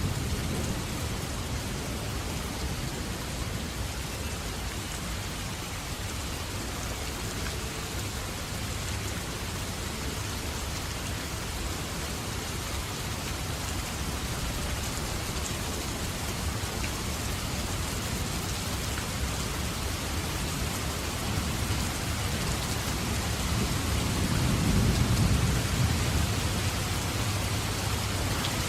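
Steady heavy rain falling on surfaces, with a low thunder rumble that builds and fades near the end.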